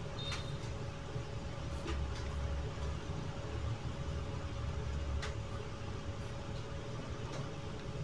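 Steady low background rumble with a faint steady hum, and a few light clicks of a thin metal pick against the laptop's hinge screw mount.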